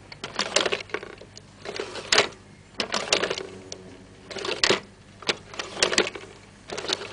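Mechanical clattering and rattling in short bursts of clicks, six or seven of them at irregular spacing, about one a second.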